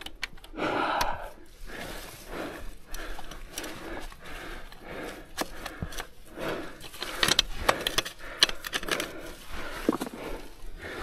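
Irregular scuffs, knocks and rattles as a KTM enduro bike is dragged by hand out of a rut through dirt and roots, its engine not running.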